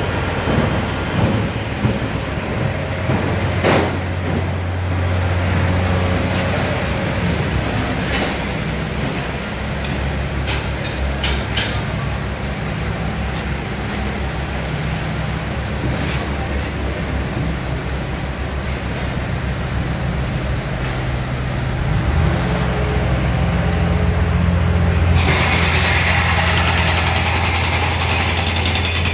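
Heavy construction machinery running: a steady low diesel-like engine hum with scattered knocks and clanks. Near the end a loud, harsh rattling starts suddenly, like hammering or drilling machinery.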